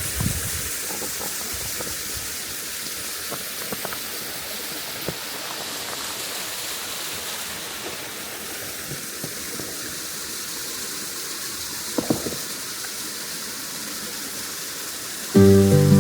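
Steady rush and hiss of water falling at a partly frozen waterfall, with a few faint knocks. Acoustic guitar music starts suddenly near the end.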